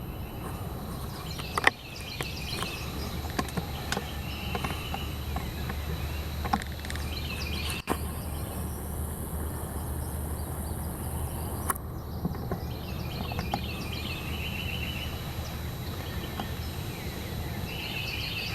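Outdoor ambience: songbirds chirping and trilling in short bursts every few seconds over a steady low rumble, with a few sharp clicks.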